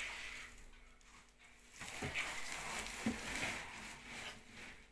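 Faint rustling and scuffing from mopping and moving about at floor level, with a couple of soft knocks about halfway through.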